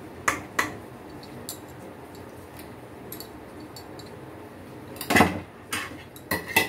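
Metal spoon clinking and scraping against a kadhai as ghee is spooned in: a couple of light taps early, then a cluster of louder sharp knocks about five seconds in and again just before the end.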